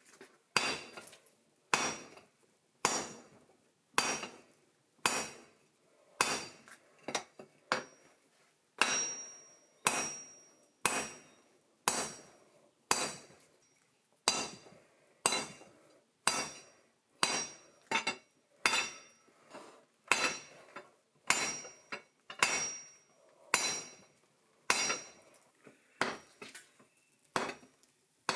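Hand hammer striking hot steel on an anvil in a steady forging rhythm, about one to two blows a second, each with a short bright metallic ring: the horn of a piece of railway track being drawn out sharper.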